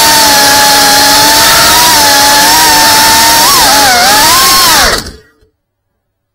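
Brushless motors and propellers of a GEPRC Cinelog 35 cinewhoop FPV drone running hard with a loud whine, pitch wavering with the throttle, heard close up from the drone's onboard camera. About five seconds in the pitch drops and the motors stop as the drone comes down on the floor.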